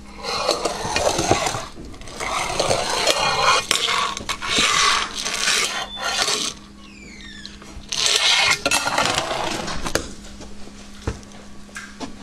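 A puppy's claws scrabbling and clattering on fingerboard ramps, in three long bursts of scraping with a pause between the second and third and quieter rustling near the end.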